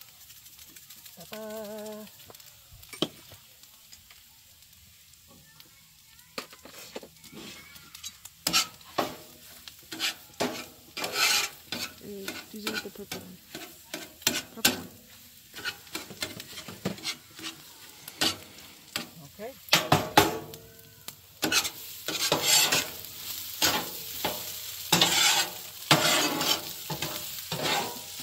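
A utensil scraping and stirring chorizo, potatoes and eggs frying in a pan, with a steady sizzle. The strokes start about six seconds in, come at an irregular pace, and grow louder and more frequent near the end.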